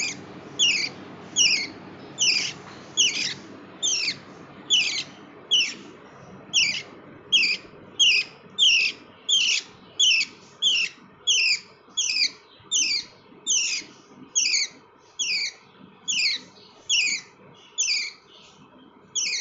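Small pet parrot calling over and over in a steady rhythm, a little over one short, sharp, high call a second, each call sliding down in pitch.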